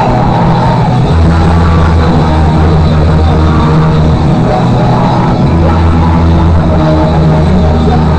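Live rock band with electric guitar playing loud, recorded so close to full scale that the sound is dense and overloaded, with long held low bass notes.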